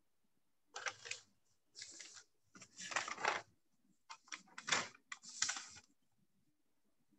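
Computer keyboard being typed on in about five short runs of clicking, separated by brief pauses.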